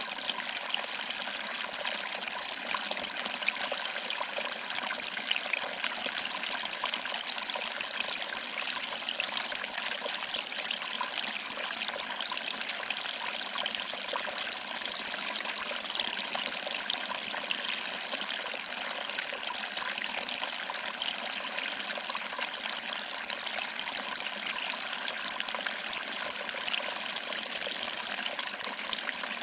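Small waterfall running steadily, water trickling and splashing over rocks into a pool, with a dense patter of small splashes over a constant rush.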